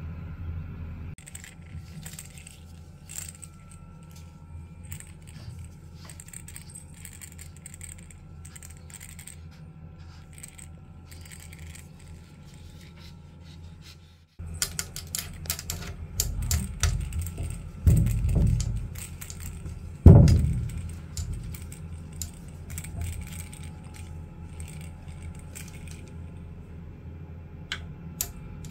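Small bell on a cat toy jingling in quick, irregular bursts over a steady low hum. Partway through come a few dull thumps, the loudest two a couple of seconds apart.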